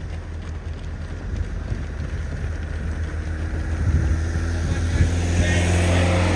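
A motor vehicle's engine running at a steady low hum, getting louder over the last couple of seconds.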